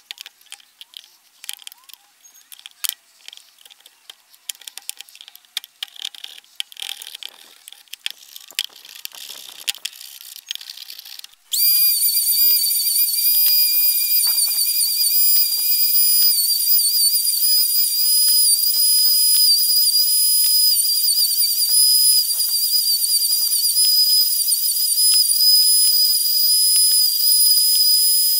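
Scattered light clicks and knocks of handling at the table, then about eleven seconds in a router in a router table starts suddenly with a loud high-pitched whine. Its pitch wavers slightly as the plum branch is fed past the spinning bit and milled.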